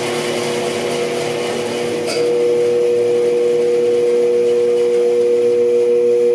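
Bandsaw motor running on a triac-based SCR speed controller, a steady electrical hum with a whine. About two seconds in there is a click and the hum steps louder and a touch higher as the knob is turned: the controller cannot slow this motor down.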